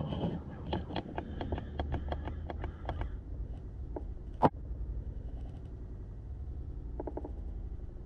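A quick, even run of about a dozen faint clicks, about five a second, then a single sharper click about four and a half seconds in, and a few faint clicks near the end.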